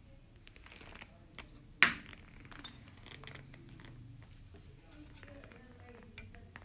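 Metal dental instruments handled and set into a metal instrument cassette by gloved hands: light rustling with one sharp metallic clack about two seconds in and a few fainter clicks later, as the cassette lid is handled.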